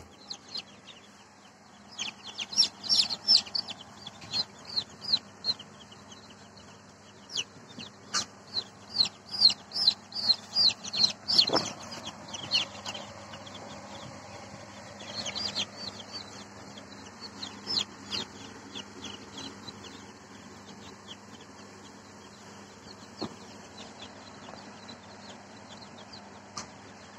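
A brood of young chicks peeping: runs of shrill cheeps, several a second, loudest and densest between about two and thirteen seconds in, then sparser and fainter.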